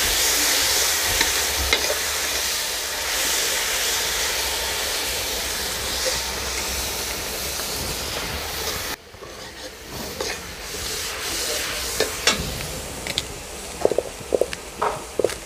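Spice masala sizzling and hissing in a hot iron kadhai right after a splash of water, stirred with a steel ladle. The sizzle cuts off abruptly about nine seconds in, leaving quieter scraping and a run of light clinks from stirring in a metal pot near the end.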